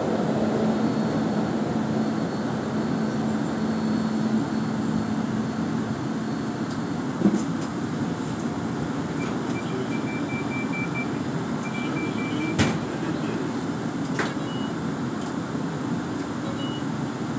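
Inside a SEPTA Kawasaki light-rail trolley running through the subway tunnel: a steady rumble of wheels on rail with a low motor hum that fades after a few seconds. A few sharp knocks and short high beeps come in the second half.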